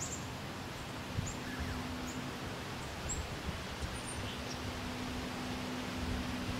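Outdoor woodland ambience: a steady hiss of background noise, with a few faint, very short high chirps scattered through it and a faint steady low hum that drops out for about a second in the middle.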